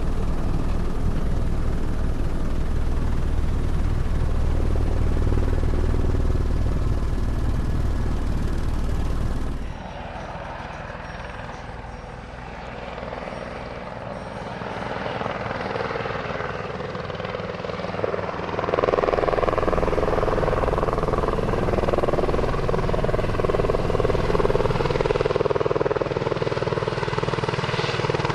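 Helicopter running, its rotor and engine loud and steady with a deep low-pitched sound. About ten seconds in it drops suddenly to a quieter level, then builds back up and is loud again past the halfway point, now with a higher hum.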